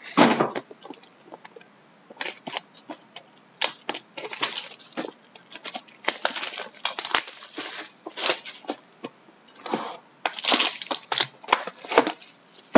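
Trading-card packaging being handled and torn open: cardboard boxes and foil-wrapped packs, making irregular crinkles and short rips.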